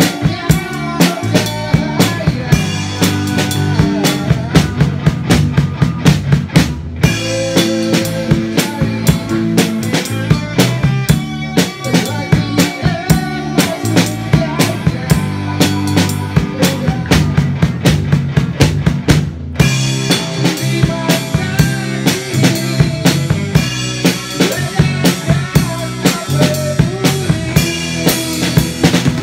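Live rock band playing a song at rehearsal: a drum kit played close by and loudest, keeping a steady beat, with electric guitars through amplifiers and a male singer through a microphone.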